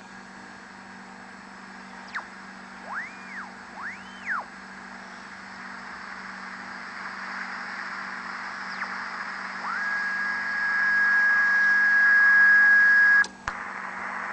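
Allied SX-190 shortwave receiver being tuned: static hiss over a low hum, with two whistles that rise and fall as the dial sweeps across signals. A steady whistle then holds for about three seconds and cuts off suddenly near the end.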